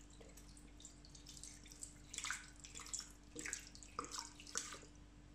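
Water poured from a glass bottle onto pork bones in a stainless steel pot: faint, uneven splashing in short spurts.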